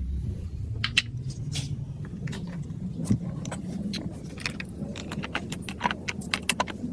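Plastic marble run: a low rolling rumble with many irregular sharp clicks and clacks of marbles and plastic track pieces.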